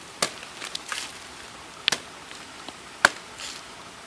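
A machete chopping into the husk of a young green coconut: three sharp chops about a second or more apart, with a few lighter taps after the first.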